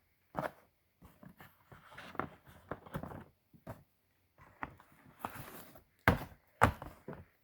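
Handling noise as coin boxes and holders are moved and set down on a table: a run of light clicks and taps, a brief rustle, and two sharper knocks near the end.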